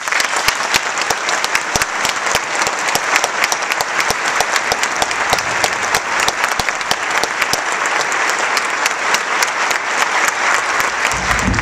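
Large audience applauding: dense, steady clapping that breaks out all at once and keeps up without letting off.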